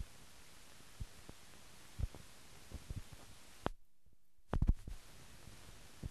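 Steady hiss with irregular low thumps and pops: the noise of a silent film's blank soundtrack. About two-thirds through, where the picture breaks to a blank frame at a cut, the hiss drops out for under a second, with a cluster of pops either side.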